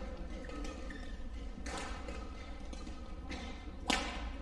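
Badminton racket striking a shuttlecock once near the end, a single sharp crack, over the steady background of a sports hall.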